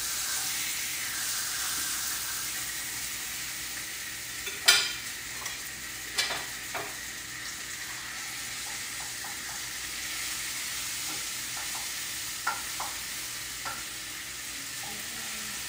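Chicken frying in a pan with a steady high sizzle, and a few sharp clacks of a utensil against the pan as it is stirred, the loudest about five seconds in.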